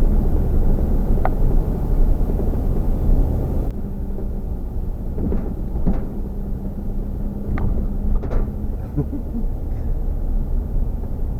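Steady low rumble of a vehicle on the move, with a constant low hum running through it and a few faint clicks. The sound changes abruptly, a little quieter and duller, about four seconds in.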